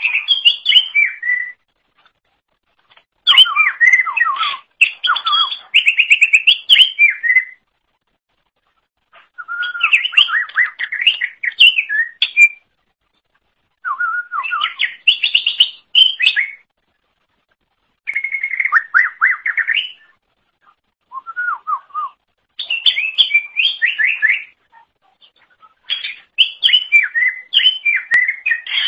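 Greater green leafbird (cucak ijo) singing loudly in rapid whistled and warbled phrases, each one to four seconds long, broken by short pauses of a second or two.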